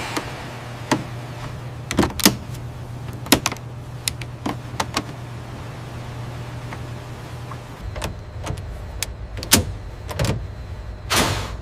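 Aircraft assembly shop sound: a steady low hum with scattered sharp metallic clicks and clanks, and a whoosh about a second before the end.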